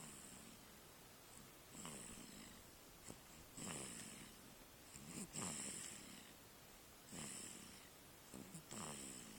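A newborn baby snoring, five snoring breaths, one about every second and a half to two seconds.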